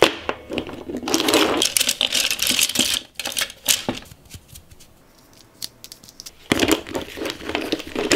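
Paint tubes and paintbrushes handled and set down on a wooden desk: clattering and rattling with many small clicks, busiest in a stretch near the start and again near the end, sparser in between.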